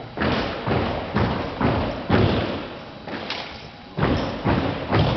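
A JROTC rifle drill team's drill rifles and boots striking a hall floor in a run of sharp thuds and slaps, about two a second, with a short lull a little past halfway.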